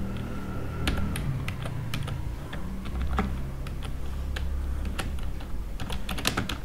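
Computer keyboard typing: irregular keystroke clicks with short pauses, coming in a quicker run near the end, over a low steady hum.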